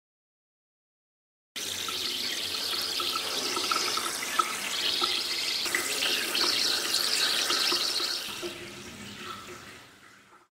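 A steady rushing, hissing noise that starts abruptly about a second and a half in and fades out near the end.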